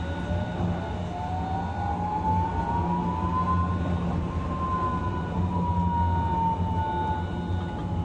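Hiroshima Electric Railway 1000-series low-floor tram with a Toyo IGBT VVVF inverter drive, its inverter whining as the tram picks up speed. The whine rises steadily for about four seconds, then eases slightly lower, over the steady hum of the running tram.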